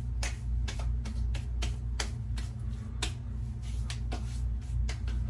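Hands patting and slapping witch hazel onto a freshly shaved face: a string of short, irregular pats, a few a second, over a steady low hum.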